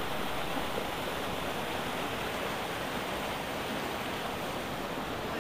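Steady rushing of a river: an even, unbroken water noise.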